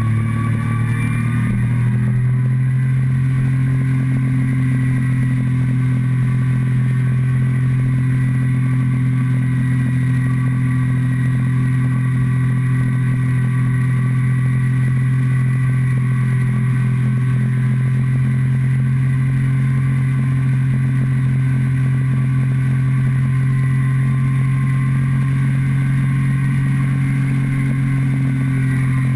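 Motorcycle engine running at a steady cruising speed, heard close up from a tank-mounted camera; its pitch rises slightly in the first couple of seconds, then holds steady.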